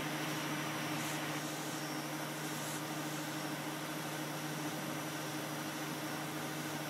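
A steady low hum with an even hiss behind it, unchanging throughout: background room noise such as a fan or appliance.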